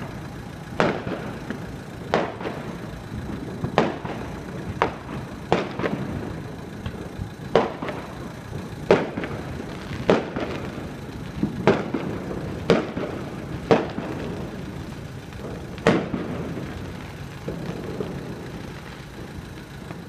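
A loud firework cake going off: a string of sharp bangs, roughly one a second and unevenly spaced, over a steady background noise.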